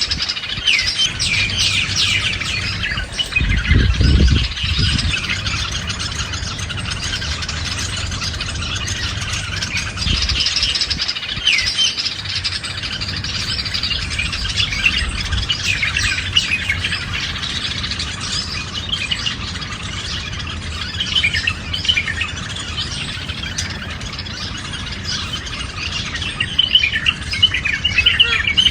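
A flock of parrots chirping and squawking continuously, many calls overlapping. A brief low rumble comes about four seconds in.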